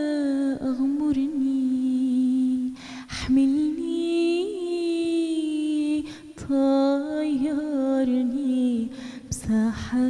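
A woman's solo voice singing an Arabic song, drawing out long notes with vibrato and melodic turns. It breaks briefly for a breath three times, at about 3, 6 and 9 seconds.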